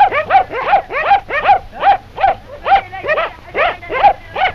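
Dogs barking in a rapid, unbroken run of short barks, about three to four a second.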